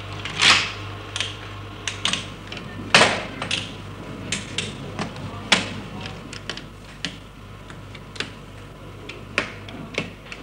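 Switches on a 1960s computer's control console clicking as they are thrown one after another to bring the machine up to standby during start-up. Irregular sharp clicks, with three heavier clunks in the first six seconds, over a steady low hum.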